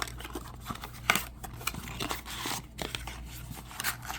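Plastic and cardboard packaging of a trading-card blaster box being torn open and crinkled by hand: a run of irregular short tears and crackles.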